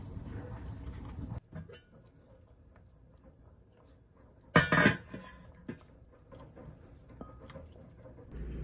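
A ladle clattering against a stainless steel soup pot while soup is served into a bowl: one loud burst of knocks and scrapes about halfway through, then a few lighter taps. Before that, a low steady room rumble cuts off suddenly about a second and a half in.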